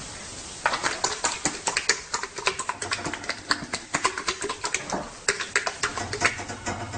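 Rapid, irregular clicking and tapping, several sharp clicks a second, starting about half a second in.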